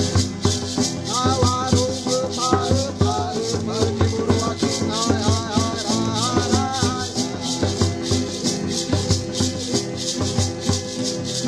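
Music with a shaken rattle, like maracas, keeping a steady beat over sustained low tones, with a gliding melody over it from about a second in until about seven seconds in.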